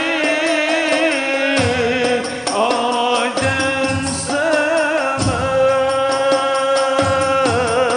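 A high male voice singing an Arabic sholawat in long, ornamented melismatic lines with a wavering vibrato, over hand drums and jingles keeping a steady beat.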